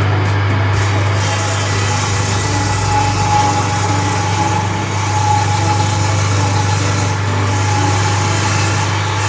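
Electric power carving tool running steadily with a constant motor hum and a thin high tone, unchanging in speed.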